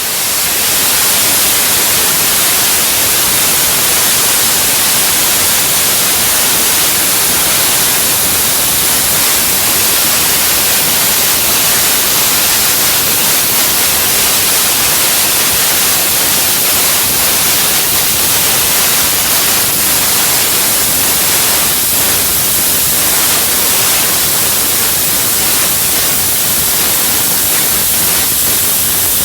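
Steam locomotive LNER A1 class 60163 Tornado standing and blowing off steam: a loud, steady hiss that does not change.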